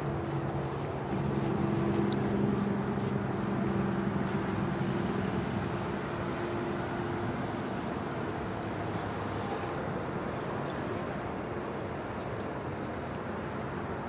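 Footsteps on the wooden planks of a footbridge, with a steady low hum that fades out about halfway through.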